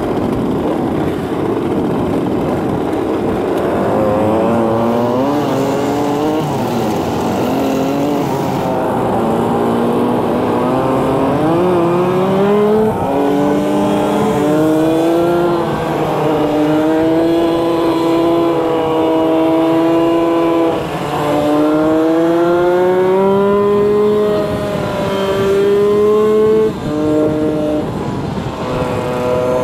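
Motor scooter engines pulling away and accelerating in a group, the pitch climbing and then dropping back with each gear change, several times over.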